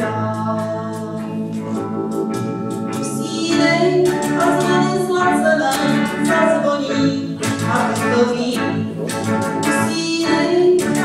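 Small live band playing a slow song, with a keyboard holding sustained organ chords. The playing grows fuller a few seconds in.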